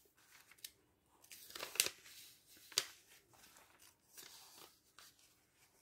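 Glossy paper pages of a printed catalogue being turned and handled: a few faint rustles and crinkles, the loudest a little under two seconds in, with a short sharp click near the middle.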